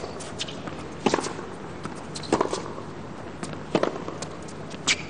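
Tennis ball struck back and forth with rackets in a rally on a hard court: five sharp hits, about one every second and a quarter, over a low arena hum.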